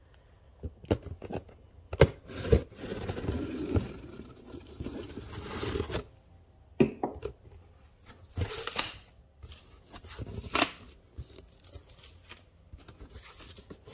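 Packaging of a boxed fireworks assortment being cut and torn open, with scraping, crinkling and a few sharp knocks as the box is handled.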